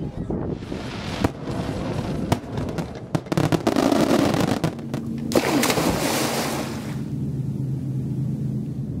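Fireworks exploding: a run of sharp bangs through the first five seconds, then a loud sizzling crackle about five to seven seconds in. From about five seconds a steady low hum carries on underneath.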